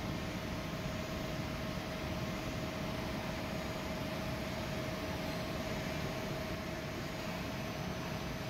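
Drilling machine running steadily with a constant whine, a twist drill boring a bolt hole in a cast iron flange.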